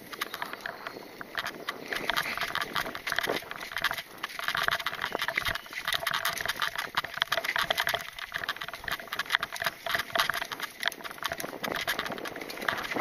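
Mountain bike clattering over a bumpy dirt singletrack: a dense, irregular run of knocks and rattles from the frame and the tyres on rough ground.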